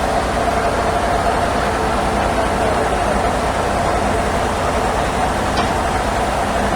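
Sawmill band saw machinery running steadily, a constant mechanical drone with a steady whine.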